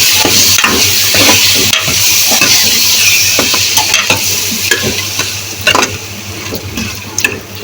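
Food sizzling in a hot pan while a spoon stirs it, with frequent clicks and scrapes against the pan; the sizzle eases off over the last couple of seconds.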